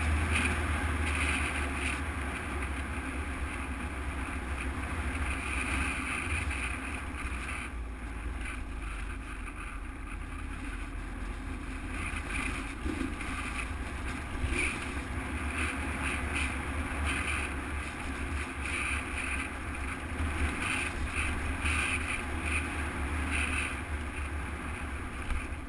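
Motorcycle engine running under way, a steady low rumble mixed with wind noise on the camera microphone.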